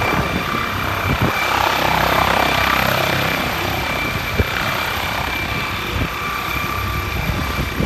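Air ambulance helicopter running on the ground with its rotors turning: a steady turbine whine over the rotor noise, with a few brief knocks.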